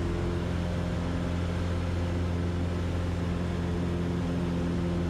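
Cessna 150's four-cylinder Continental O-200 engine and propeller droning steadily at climb power, heard from inside the cockpit.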